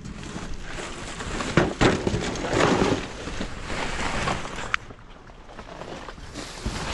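Rummaging through discarded items in a dumpster: rustling and shifting of bags and debris, with several knocks in the first half and a sharp click a little past the middle, then quieter.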